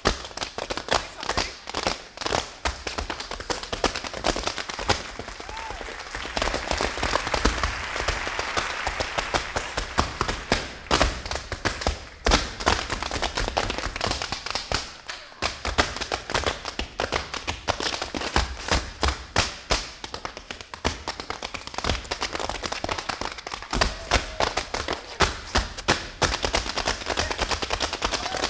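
Several dancers' tap shoes striking a wooden stage floor in fast, dense, shifting rhythms, with no music behind them.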